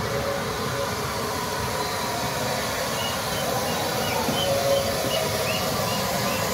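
Rebuilt Bulleid West Country class steam locomotive 34028 Eddystone running into the station with its train: a steady rumble of the engine and coaches and a hiss of steam. A few short high squeaks come in about halfway through.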